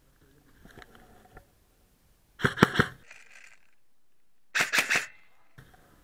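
Airsoft gun firing: two short bursts of three or four sharp cracks each, about two seconds apart.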